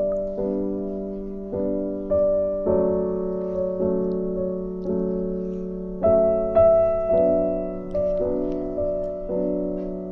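Background piano music: an unhurried melody of struck notes and chords, a new one about every half second to a second, each fading before the next.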